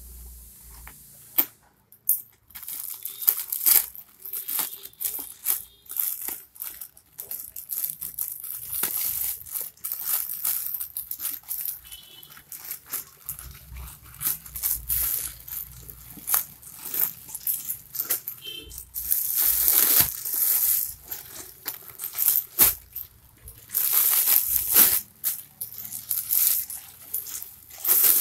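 Plastic courier mailer bag being torn open and crinkled by hand: irregular crackling and rustling plastic that starts about two seconds in, with a few louder rustling stretches.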